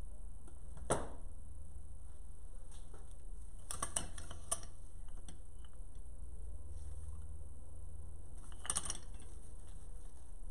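Brief light clicks and rustles of artificial flower stems and foliage being handled, about a second in, in a short cluster around four seconds in, and again near the end, over a steady low hum.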